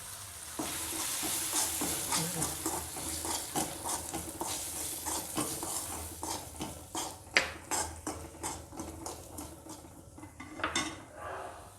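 A spoon stirring peas and spices in a kadhai, with many short clicks and scrapes against the pan over a light sizzle from the still-hot oil.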